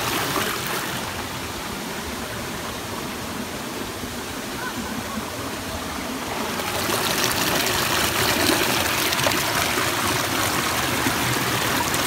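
Shallow rocky stream rushing over and around stones, a steady wash of water noise that grows louder and hissier about seven seconds in.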